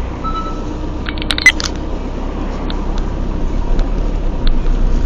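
Car driving, with a steady road and engine rumble. A quick cluster of sharp knocks ends in a loud bang about one and a half seconds in, followed by a few scattered clicks.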